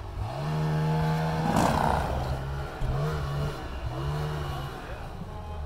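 Snowmobile engine revving under throttle: one pull held for over a second, then three shorter pulls, with a brief hiss near two seconds in.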